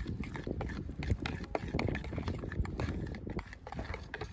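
Spoon stirring a thick marinade in a bowl: quick irregular clicks and scrapes against the bowl, over a low rumble.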